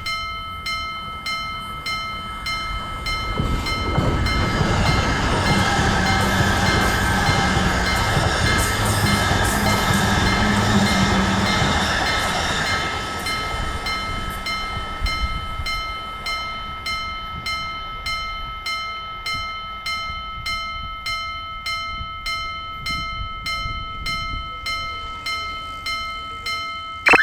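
Japanese railroad crossing alarm bell dinging steadily at about one and a half strikes a second, while a train passes at speed: its rumble swells from about four seconds in, peaks midway and fades out by about fifteen seconds in, leaving the bell dinging alone.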